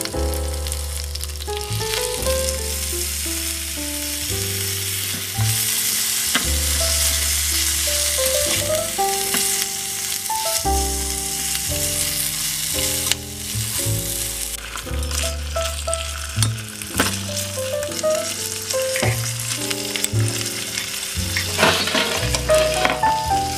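Meat and vegetables sizzling as they fry in a miniature stainless-steel pot, stirred with a tiny metal spatula, over background music with stepping melodic notes and bass.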